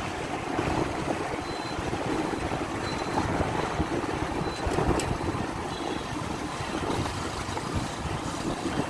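Wind buffeting the microphone over the steady rumble of traffic while moving along a town road, with a single sharp click about five seconds in.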